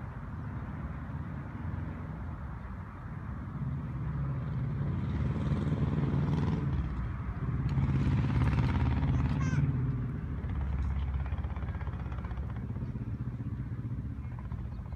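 A motor vehicle driving past with a low engine rumble that grows louder, peaks about eight to nine seconds in, then fades away.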